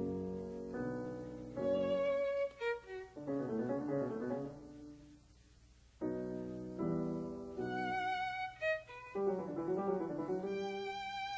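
Instrumental background music with a bowed violin melody, its notes held with vibrato, pausing briefly about five seconds in before the phrase starts again.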